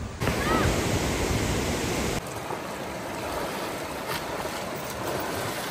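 Fast river rushing and churning, a steady roar of water. About two seconds in it cuts abruptly to a slightly quieter stretch of the same rushing water.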